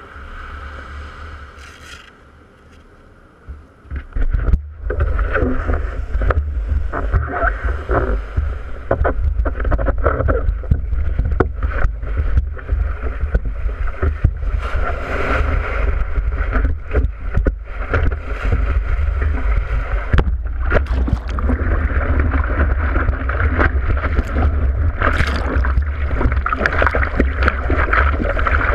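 Water sloshing and splashing against a surfboard-mounted GoPro Hero 3 as the board is pushed into the shallows and paddled, with a heavy low rumble of water buffeting the housing. The first few seconds, on the sand, are much quieter before the board goes into the water.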